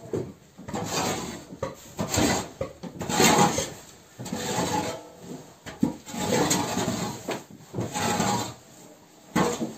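A shovel scraping and scooping loose material across a wooden floor in a run of irregular strokes, each about half a second to a second long.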